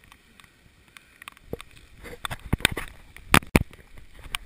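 Footsteps and rustling of a person moving fast through wet forest undergrowth, with twigs and branches scraping past. The knocks and scrapes thicken from about halfway, the loudest two close together near the end.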